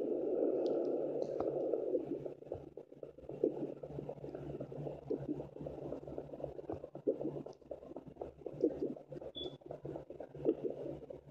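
Handheld fetal Doppler's speaker hissing and crackling over a steady low hum as its probe is held on a pregnant German Shepherd's belly, searching for the puppies' heartbeats. The hiss is loudest in the first two seconds, then breaks into uneven crackles and soft thumps.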